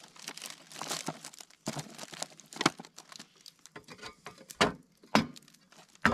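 Plastic bag of wood smoker pucks crinkling as it is handled, with sharp clicks and knocks as the pucks are stacked into an electric smoker's feed tube.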